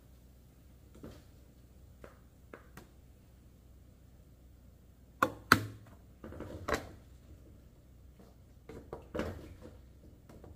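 Kitchenware being handled: scattered knocks and clicks of a spoon and food containers as food is dished out, with two sharp knocks about five seconds in the loudest.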